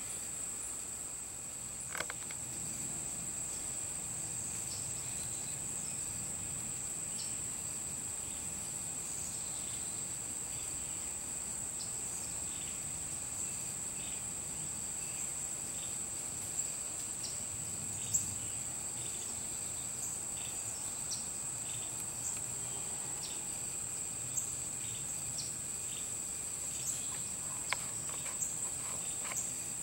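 Insect chorus trilling steadily at a high pitch, with scattered short chirps and a few light ticks over it.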